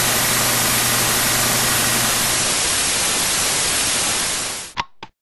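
Loud TV-static hiss with a low steady hum under it for the first half. The static fades away just before the end, and two short clicks follow before it cuts off.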